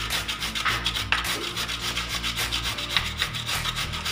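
A carrot being shredded by hand on a grater, in quick, even rasping strokes.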